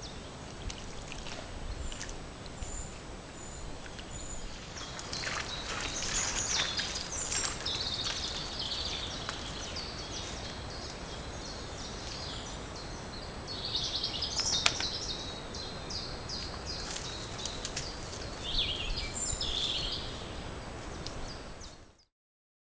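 Wild songbirds chirping and singing on and off over a steady outdoor hiss, with a thin, faint high tone running underneath. A few sharp snaps come partway through, and the sound cuts off abruptly near the end.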